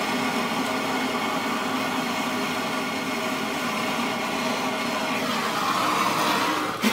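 Handheld gas torch burning with a steady rushing hiss, its flame heating a seized brake line nut soaked in penetrating fluid to free it. The hiss changes tone slightly near the end.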